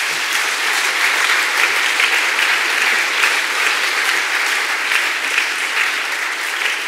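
Audience applauding: dense, steady clapping from many hands that eases slightly near the end.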